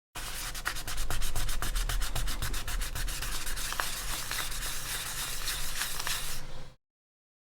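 Sandpaper rubbed against the plastic AirPods Pro case in quick back-and-forth strokes, several a second. It starts and stops abruptly, about six and a half seconds of continuous scratchy rubbing.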